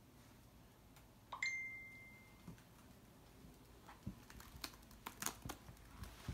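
A smartphone message alert about a second and a half in: a quick upward chime that holds one steady tone for about a second and fades. After it, laptop keyboard keys clicking in irregular typing.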